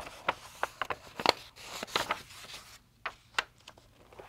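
Pages of an old hardback book being flipped through rapidly by hand: a quick run of crisp paper flicks and rustles, thickest in the first couple of seconds and then a few single flicks.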